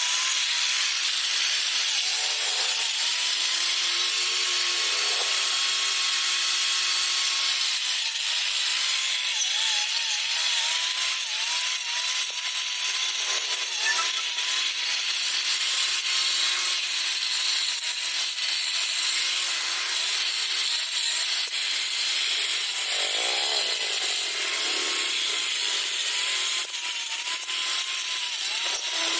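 Homemade grass cutter built from a used electric angle grinder, running at speed with a steady high whine that dips briefly in pitch now and then as the blade takes load cutting grass.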